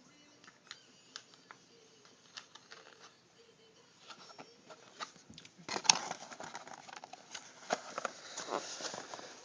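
Close handling noise from a small collectible set and its packaging: scattered light clicks and taps, then denser rustling and clicking from about six seconds in.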